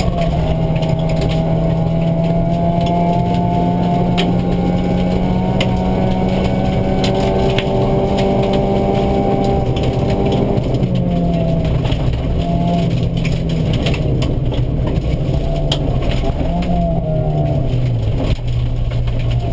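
Opel Astra GSi rally car's engine heard from inside the cabin, held at steady high revs for about ten seconds, then dropping and rising in pitch through gear changes and lifts off the throttle. Gravel ticks and clicks against the underbody throughout.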